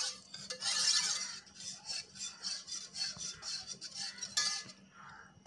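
Wire whisk beating cornflour into beetroot juice in a steel bowl, the wires swishing and clinking against the bowl in quick even strokes, about four a second, to work out the lumps.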